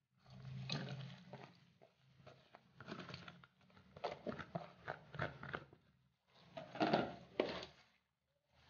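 Wet grated coconut, mixed with grated turmeric and garlic, being tipped into a stainless steel colander and squeezed and kneaded by hand to press out the coconut milk: irregular squishing and crunching in uneven bursts with small clicks.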